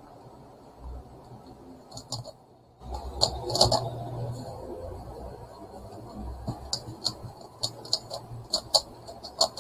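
Megaminx puzzle being turned fast by hand, its plastic layers clicking and clacking in quick irregular runs of turns with short pauses between.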